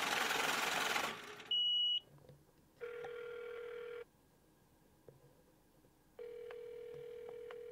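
Outgoing-call ringback tone from a smartphone on speakerphone: two steady rings a couple of seconds apart while the call waits to be answered. Before them, in the first second or two, there is a burst of loud hiss and a short high beep.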